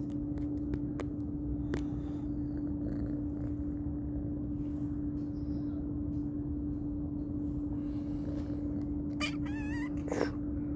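Tabby kitten meowing near the end, one high wavering call followed by a short sharp sound, over a steady low hum.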